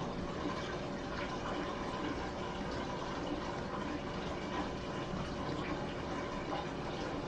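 Water running and splashing steadily in an aquarium sump, with a faint steady hum underneath.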